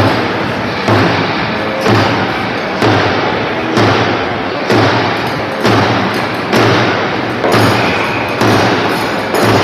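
A steady run of thuds, about one a second and evenly spaced, over a loud continuous noisy background.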